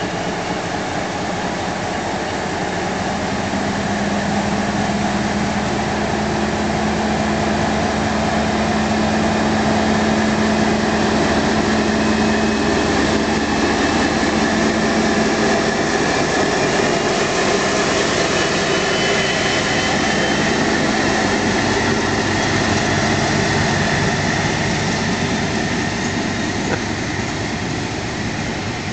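Class 56 diesel locomotive's Ruston-Paxman 16-cylinder engine working under power as the locomotive pulls away, its note growing louder to a peak about ten seconds in and then slowly fading, with a high whine over the engine sound through the middle.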